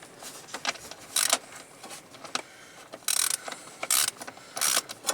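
Hand ratchet clicking in about four short runs, with scattered small clicks between, as a screw is backed out of a plastic cover.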